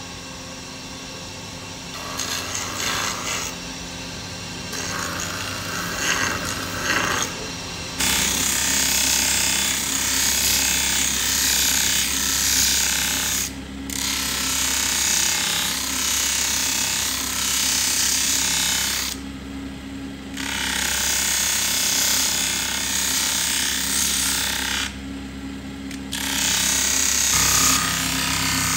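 Steel cleaver blade ground against a spinning motor-driven abrasive wheel: a loud, even grinding hiss in long passes over the steady hum of the wheel's motor. It breaks off three times briefly when the blade is lifted. In the first few seconds the grinding is lighter and comes in short touches.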